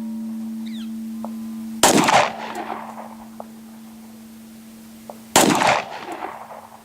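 Two shots from a Glock 17 9mm pistol, about three and a half seconds apart, each with a short echo. A steel gong target rings a steady tone between the shots.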